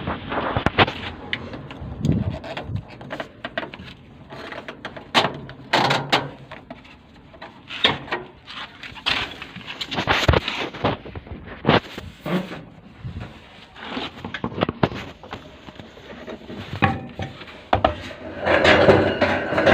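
Irregular clicks, knocks and clatter from a washing machine being handled, like its door and detergent drawer being opened and shut. Music starts near the end.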